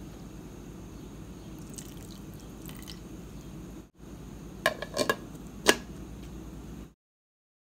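A few sharp clinks of kitchenware, knocking and ringing briefly, the last one the loudest, over a low steady hum; the sound cuts off shortly before the end.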